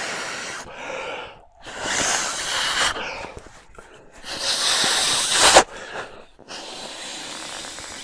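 A man blowing by mouth into the valve of an inflatable travel neck pillow: several long, breathy rushes of air, with short intakes of breath between them. The strongest blows come about two and five seconds in, the second stopping abruptly.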